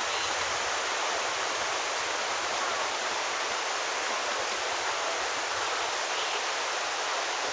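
Flowing creek water making a steady, even rushing hiss with no breaks or changes.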